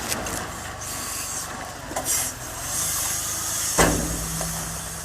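Heavy machinery noise with scraping and rubbing. About four seconds in there is a sharp knock, after which a steady low hum sets in.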